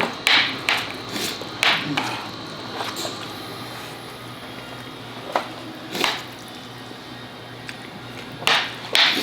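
Cutlery clinking and scraping against dishes as people eat, in short irregular clatters, with a cluster of louder ones in the first two seconds and again near the end.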